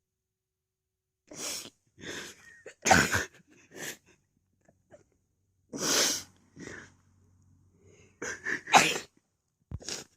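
A person sneezing over and over: a run of sudden, loud sneezes, with the biggest at about three, six and nine seconds, and smaller bursts of breath and sound between them.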